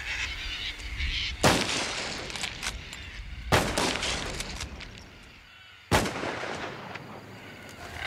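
Three high-powered rifle shots, about two seconds apart, each followed by a long fading tail. They are fired to scare crop-raiding cockatoos off the paddocks.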